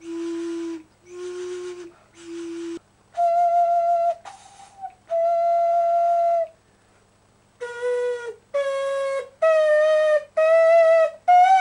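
Hollowed vegetables blown like flutes, one short breathy note at a time. A daikon radish sounds three low notes, then a broccoli head three higher notes, then a carrot five notes that mostly climb in pitch.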